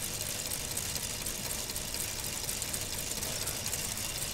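Motor-driven K'nex plastic model V8 engine running steadily: a continuous whirr of its motor and moving plastic parts with fast, light clicking.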